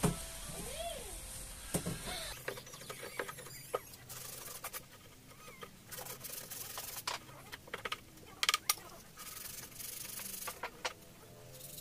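Sandpaper rubbing by hand on the planed edge of a small piece of wood, in short irregular strokes with a few sharper knocks of the piece against the bench.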